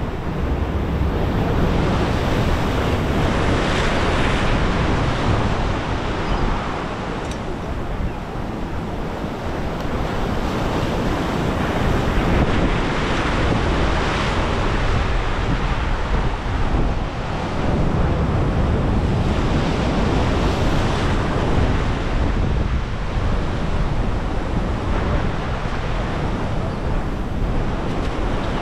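Rough inlet surf churning and breaking around the pier's pilings, a continuous rushing of whitewater that swells and eases, with gusty wind buffeting the microphone as a low rumble.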